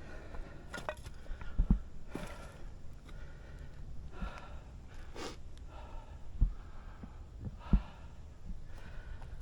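A few dull, low thumps, the first one doubled, over a soft rustling, breathy background.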